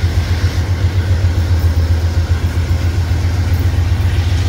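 Amtrak GE P42DC Genesis diesel locomotives standing and idling, a steady low engine drone.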